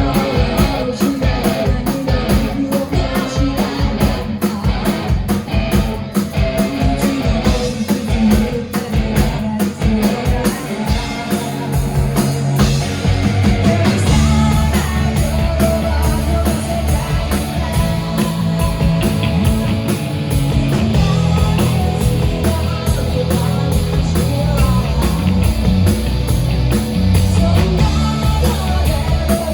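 Rock band playing live: electric guitar, bass and drums with singing. The drums keep a steady beat at first; about halfway through the drumming thins out and the bass holds longer notes.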